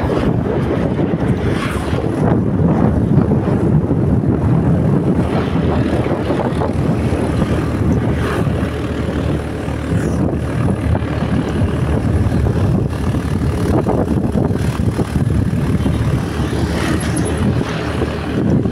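A motorbike being ridden at steady speed: its engine and tyres running with wind rushing over the microphone.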